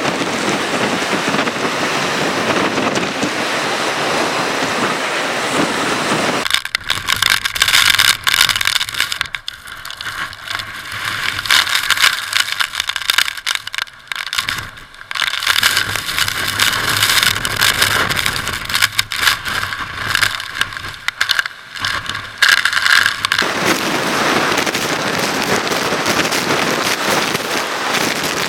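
Hurricane wind and driving rain, a loud steady rush. For most of the middle the sound turns thinner and gusty, with rapid brief dropouts, before the full rush returns near the end.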